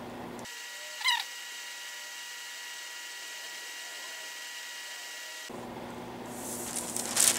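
Steady hiss with a faint electrical hum. About a second in comes one short, high, wavering squeak. Near the end, sheets of tracing paper rustle as they are handled.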